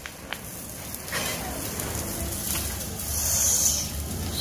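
Hand-held coloured sparklers fizzing and crackling, with a louder, higher hiss about three seconds in.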